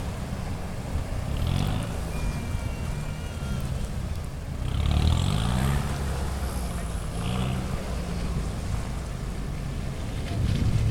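Off-road vehicle engine running and revving up several times, its pitch rising and falling around a second in, about five seconds in and again about seven seconds in.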